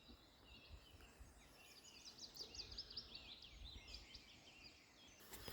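Faint woodland birdsong from several birds, with one fast run of quick, twittering high notes about a second and a half in that is the loudest part.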